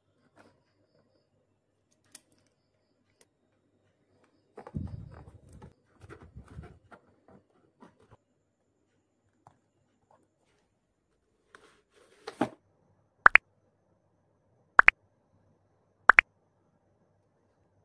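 A cardboard box being handled and cut with scissors, faint scattered rustles with a denser patch of crinkling about five seconds in. Near the end come three short, sharp click sound effects about a second and a half apart, the loudest sounds here, laid over a like-and-subscribe button animation.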